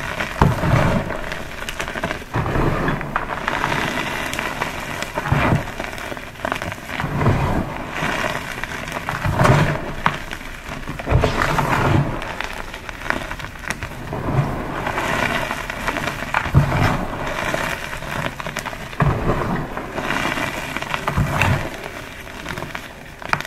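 Green pasted gym chalk blocks being crushed: a dense run of dry crunching and crackling, with a dull low thump every couple of seconds.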